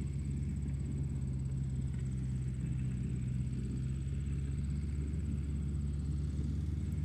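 Steady low droning hum of a running motor, with a faint constant high-pitched whine above it and no change in pace.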